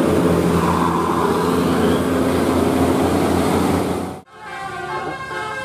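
Large bus's engine running, a loud steady drone with a low hum. About four seconds in it cuts off abruptly, and a quieter passage of steady pitched tones follows.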